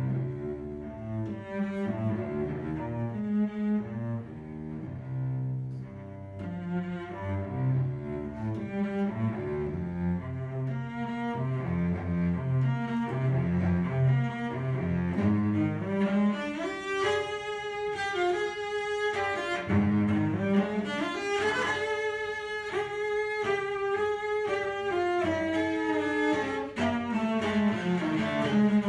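Solo cello played with the bow: a run of low notes changing about twice a second, then the line climbs into the upper register with long, held notes, and slides back down low near the end.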